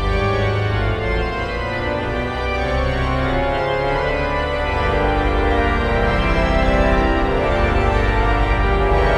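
Four-manual, 81-rank Quimby pipe organ playing held full chords over deep bass notes, the chords changing about once a second and growing a little louder from about halfway through.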